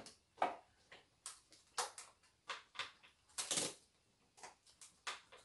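Plastic bread wrapper crinkling as it is handled and opened, in short irregular crackles.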